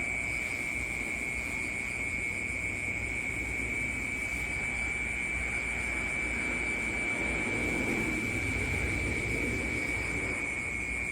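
Night ambience: insects trill in a steady, unbroken high-pitched chorus over a low rumble that swells in the second half.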